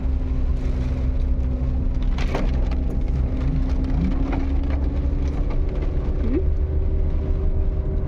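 A vehicle running along the road, heard from inside: a steady low engine and road rumble with an even engine hum and a few small knocks and rattles.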